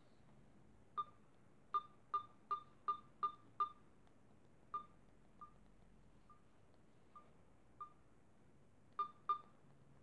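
Onda tablet's volume-change feedback beep from its speaker, about fourteen short, identical beeps as the volume keys are pressed up and down. The beeps get louder in a quick run of several a second, fade as the volume is lowered, then get louder again near the end. It is the only sound from a tablet whose screen lights but shows nothing.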